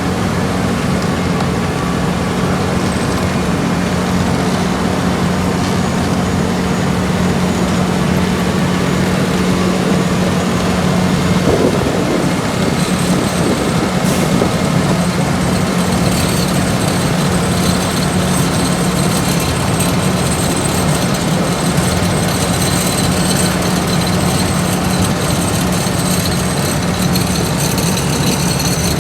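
Heavy diesel construction machinery running steadily, with a constant low engine drone. A faint high whine joins about halfway through.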